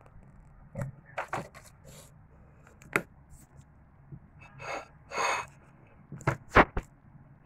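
Le Creuset ceramic flower plate handled on a countertop: scattered knocks and clinks, the loudest near the end, with two short brushing sounds in the middle.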